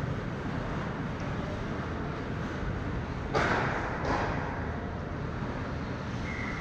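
Ice hockey game in an ice arena: steady rink noise, with two sharp hits on the ice or boards about three and a half and four seconds in, the first the louder.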